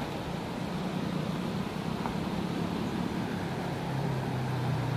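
Steady rush of a shallow, rocky river running over rapids, with a low steady engine hum underneath that drops slightly in pitch near the end.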